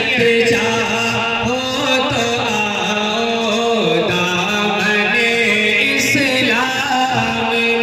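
Solo male voice singing a slow devotional song into a handheld microphone, with long held notes that bend and slide in pitch.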